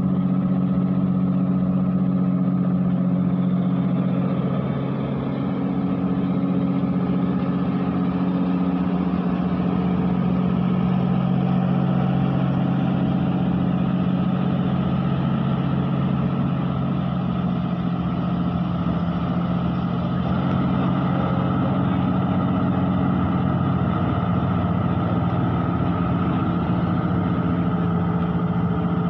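Tracked excavator's diesel engine running steadily at one even pitch while the machine works its boom and arm.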